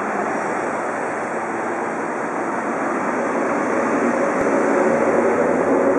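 Hitachi-built Trensurb electric multiple unit running into a station, a steady rumbling noise that grows gradually louder as it nears, with a low whine coming in about halfway.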